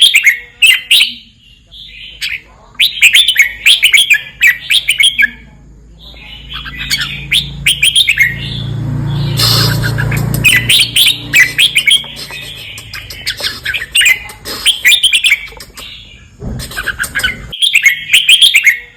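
Red-whiskered bulbul singing, repeating short, bright warbled phrases every couple of seconds. A low rumbling noise swells and fades beneath the song about midway.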